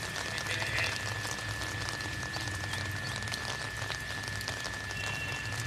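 Steady rain falling, an even hiss dotted with fine drop ticks, under a constant high-pitched whine.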